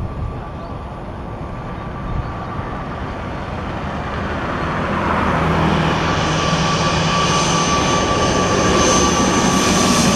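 Twin-turboprop airliner on landing approach, its engines and propellers growing steadily louder as it comes in low toward the listener, with a steady high-pitched whine over a deepening hum.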